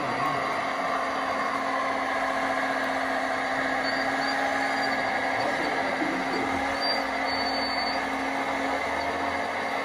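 Radio-controlled Liebherr tracked hydraulic excavator running with a steady, even hum and whine from its hydraulic pump as the boom and bucket move.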